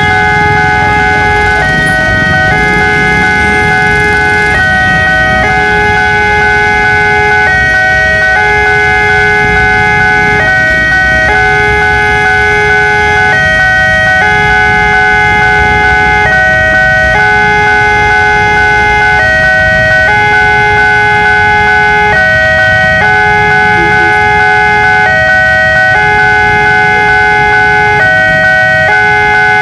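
Railway level-crossing warning alarm: two electronic alarms sounding together, a stepped multi-tone pattern repeating about every three seconds, over the idling engines of waiting motorbikes and cars.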